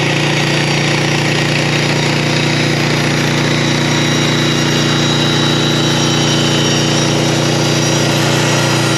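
TimberThunder portable band sawmill running steadily, its engine under load as the band blade cuts lengthwise through a spruce log.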